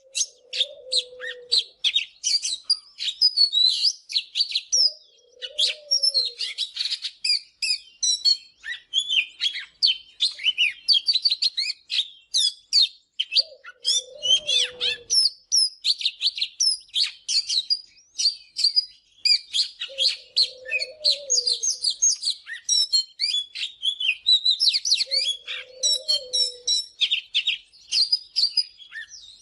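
Oriental magpie-robin singing a fast, varied song of sweet whistles and chirps, almost without pause. Behind it, a low hooting note comes back five times, about every five or six seconds.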